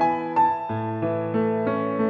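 Background music: a gentle piano melody, notes struck about three a second at first, then held longer over low bass notes.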